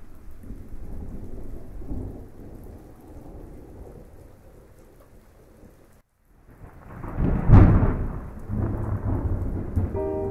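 Thunderstorm with rain and low rolling thunder. It cuts out abruptly about six seconds in, then a loud thunderclap strikes a second and a half later and rolls off into rumbling.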